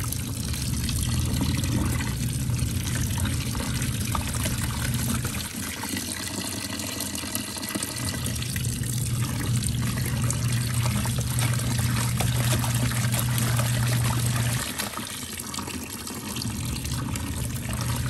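Portable washing machine running: a steady low motor hum under a constant rush of water as the tub fills and churns with towels. The motor hum drops out twice, about five and fifteen seconds in, for a second or two each time, then starts again.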